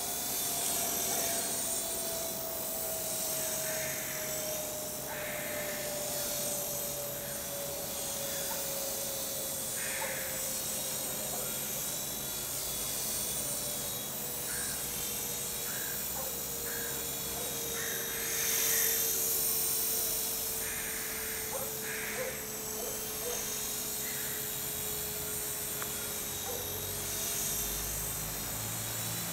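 A homemade sub-micro collective-pitch RC helicopter in flight, its small electric motor and rotor giving a steady high-pitched whine. Under the whine, a lower tone slowly sinks in pitch.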